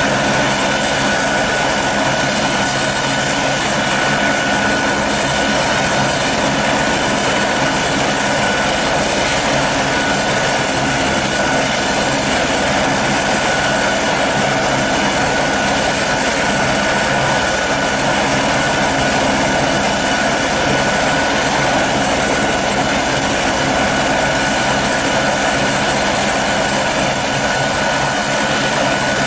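Airbus Helicopters AS355N Ecureuil 2 (TwinStar) running on the ground with its twin Turbomeca Arrius turboshafts and main rotor turning. The sound is a steady, unchanging rush with a high, constant turbine whine.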